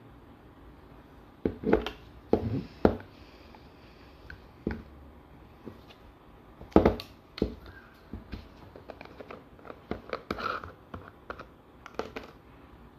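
Hands unwrapping and opening a plastic cosmetic jar: scattered clicks, crinkles and scrapes as the packaging band around the lid is peeled off and the lid comes away. The loudest knocks fall about a second and a half to three seconds in and again near seven seconds, with a run of small ticks after.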